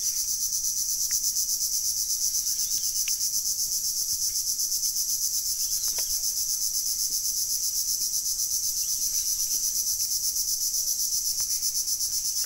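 Shrill, steady drone of insects in the mangroves, pulsing fast and evenly, with a few faint ticks over it.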